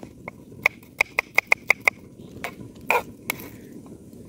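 Kitchen knife chopping garlic cloves on a round wooden chopping board: the blade knocks on the board with a short wooden ring. A quick run of about six chops comes about a second in, followed by a few slower, heavier ones.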